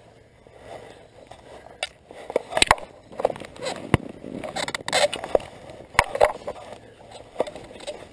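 Fly line being stripped in by hand and handled against the rod: irregular rustling swishes with a handful of sharp clicks and knocks.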